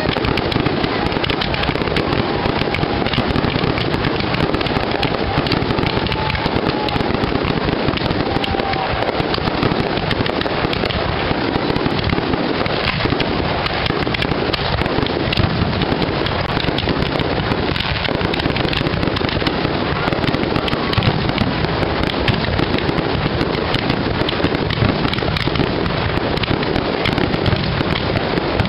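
Fireworks display: aerial shells bursting in a dense, unbroken string of bangs, steady in loudness with no pauses.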